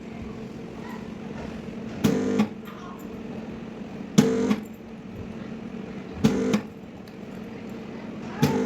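Four short pitched buzzing pulses, evenly spaced about two seconds apart, from a dent-repair tool working on a car body panel, over a steady electrical hum.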